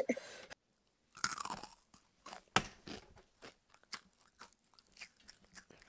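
Flaming Hot Cheetos being crunched and chewed close to the microphone: a string of small, crisp crunches, with a brief louder noise just over a second in.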